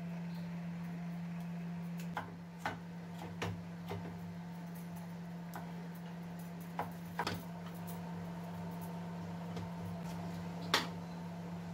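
A few scattered sharp knocks and clicks of kitchen work, a knife on a wooden chopping board and small items handled, the loudest near the end, over a steady low hum.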